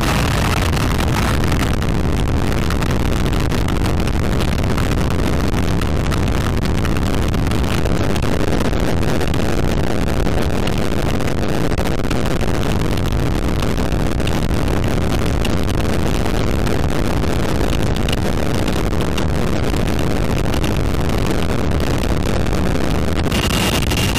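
Sikorsky CH-53E Super Stallion helicopter carrying an external sling load, heard from just beneath the fuselage: a steady, loud rush of rotor wash and engine noise with wind buffeting the microphone.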